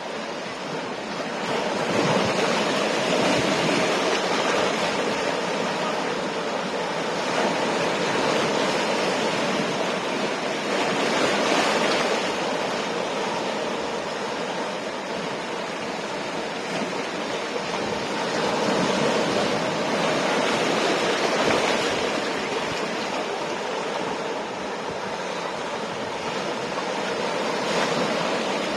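Ocean waves breaking on the shore in a continuous rushing wash that swells and eases every few seconds.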